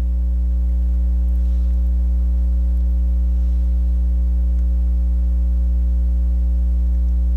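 Steady electrical mains hum: a low drone with a stack of higher overtones, unchanging in pitch and level.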